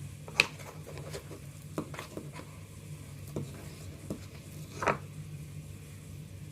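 Hands massaging a homemade yogurt, honey and shea butter conditioner through wet hair: irregular soft squelches and clicks, the sharpest about half a second in and another near five seconds, over a steady low hum.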